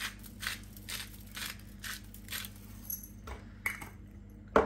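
Hand-twisted salt grinder grinding salt crystals: a steady run of crunchy clicks, about four a second, that stops about two and a half seconds in, followed by a couple of faint knocks.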